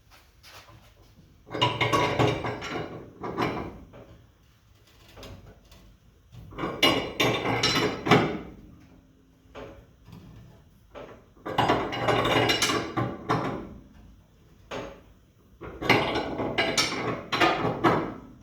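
Homemade coil spring compressor being tightened on a 1963 Ford Fairlane's front coil spring: its threaded rod is worked by hand with a wrench in four bouts of a couple of seconds each, with grinding metal-on-metal noise as the rusty spring is squeezed down.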